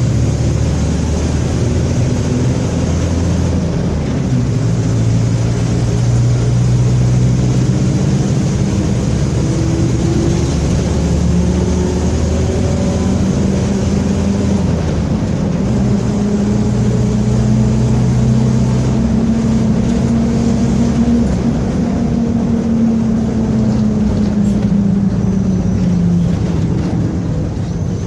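Mercedes-Benz OF-1721 city bus's diesel engine running under way, its pitch climbing and dropping several times as it goes through the gears, with the differential growling.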